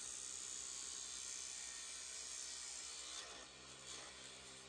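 A turning tool cutting a spinning Jatoba wood blank on a JET wood lathe: a steady hiss of shavings coming off over the faint hum of the lathe. The hiss eases about three seconds in, with a couple of short scraping touches after.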